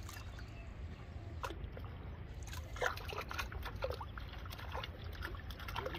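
Water trickling and sloshing, with a few short splashes around the middle.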